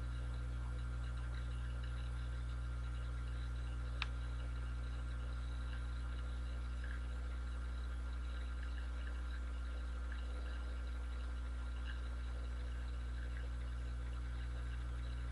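Steady low electrical hum with faint room noise and no speech. There is one short click about four seconds in.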